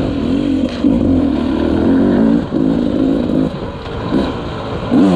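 Dirt bike engine revving up and down under the rider's throttle as it is ridden around a track, its pitch rising and falling and easing off briefly a few times.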